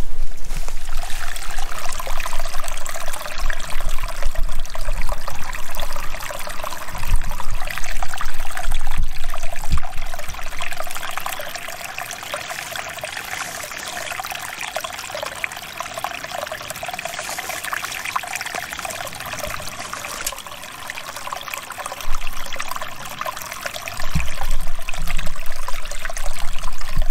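A small stream running and trickling over rocks, loud and close. It is louder for the first ten seconds or so, softer through the middle, and louder again near the end.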